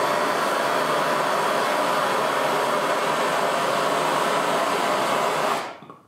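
Handheld propane torch burning with a steady rushing hiss, its flame played onto a thin sheet held in the hand; the torch is shut off near the end and the hiss cuts off suddenly.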